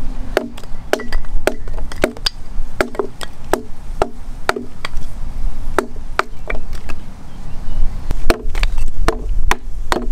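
Hatchet splitting firewood into small kindling on a chopping log: a run of sharp wooden chops, about two a second, with a couple of short pauses.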